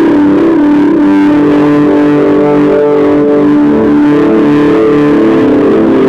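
Roland synthesiser played on its keyboard: a loud, unbroken line of sustained notes stepping up and down in pitch, with the notes alternating quickly between two pitches in the second half.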